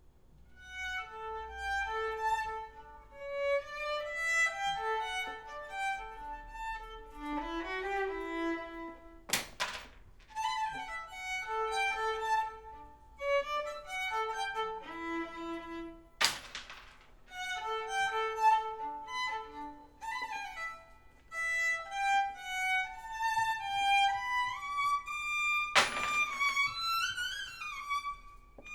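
Violin playing a melody of short separate notes with a few sliding notes near the end. Three sharp percussive strikes ring out: about nine seconds in, sixteen seconds in, and near the end.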